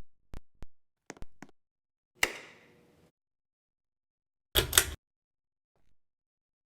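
Sharp clicks and knocks: a few light taps in the first second and a half, a louder knock about two seconds in with a short ringing tail, then a quick cluster of hard knocks near five seconds.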